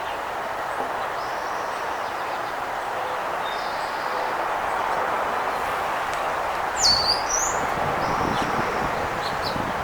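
Wind rushing steadily through the park, with small songbirds giving thin high calls throughout. About two-thirds of the way in one bird gives a louder, sharp call that drops in pitch, followed by a shorter rising one, then a few short chips near the end.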